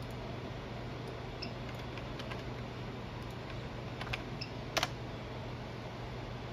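Scattered computer keyboard clicks as a web address is typed, with one louder click a little past the middle, over a steady low hum.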